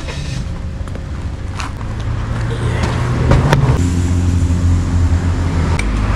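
A car driving by on the road, its engine growing steadily louder as it approaches, with a change in engine pitch about halfway through.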